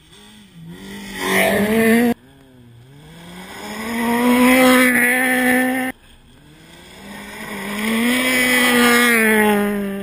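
Rally car engines at high revs, several cars approaching one after another in clips cut hard together. The first rises quickly and is cut off after about two seconds. The next two each build in pitch and loudness over three to four seconds, and the last one falls in pitch near the end.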